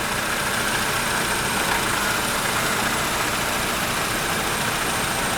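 2010 Honda Civic engine idling steadily, with its newly fitted power-steering pump running on freshly topped-up fluid while the steering is worked from lock to lock. The steering makes no noise.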